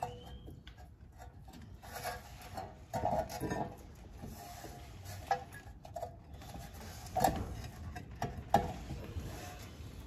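Scattered metal clicks and clinks of brake parts being handled and fitted behind a car's brake rotor: a short cluster about three seconds in, then sharper single clicks later on.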